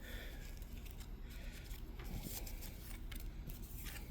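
Soft rustling and light scraping of trading cards and their pack wrapper being handled and sorted, with a few small clicks.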